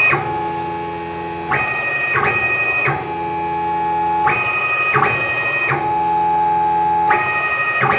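CNC mill Z-axis stepper motor whining through a G83 peck-drilling cycle. A steady single-pitch whine during each slow feed alternates with a higher, multi-tone whine during the rapid retract and return, which has a short pause in the middle. The cycle repeats about every three seconds, three times.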